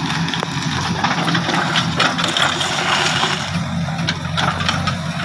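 JCB backhoe loader's diesel engine running steadily, with irregular light metallic clinks and rattles over it.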